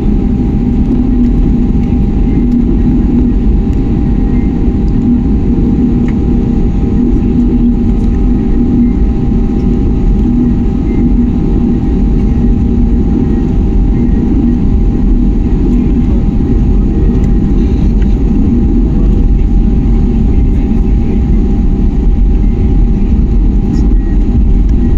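Cabin noise inside an Airbus A320neo: a loud, steady rumble from the engines and airframe, with a steady hum over it.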